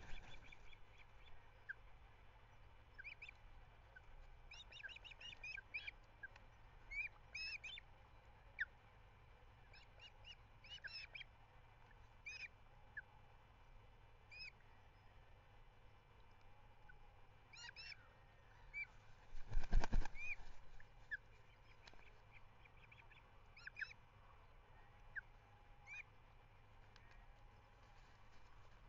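Ospreys at the nest giving short, sharp, high whistled chirps, singly and in quick runs, on and off throughout. About two-thirds of the way through, a loud low rumble lasts about a second.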